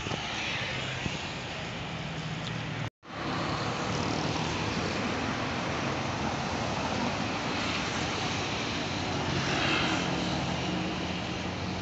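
City street traffic: cars and motorcycles passing on a wet avenue, a steady rush of engines and tyres. The sound cuts out completely for a moment about three seconds in, and it swells as a vehicle passes close near the end.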